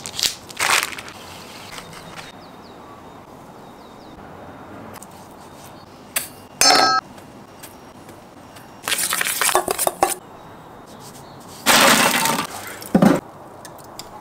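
Food-prep handling sounds in short separate bursts: a knife slitting the plastic wrap of a bologna chub at the start, a single ringing clink of glass on a stainless steel bowl near the middle, then several short rustling and scraping bursts.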